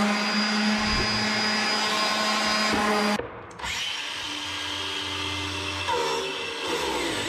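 Random orbital sander running with a steady hum, cutting off abruptly about three seconds in; a quieter, mixed sound follows.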